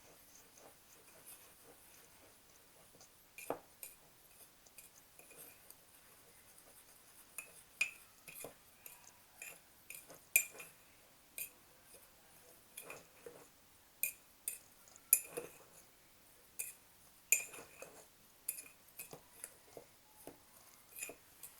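A metal spoon stirring dry cake ingredients (flour, sugar, cocoa powder) in a mug, clinking irregularly against the mug's sides and bottom.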